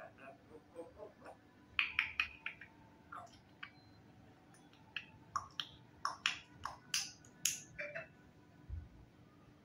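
African grey parrot vocalising: a string of sharp clicks, short whistles and brief chattering calls, in two clusters with a pause between.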